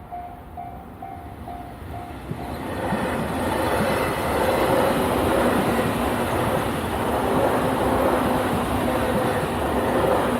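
Level-crossing warning bell ringing in quick, even dings, drowned out a couple of seconds in as a JR Kyushu 813 series electric train passes over the crossing, its wheels clattering on the rails and the noise building to a steady loud rush.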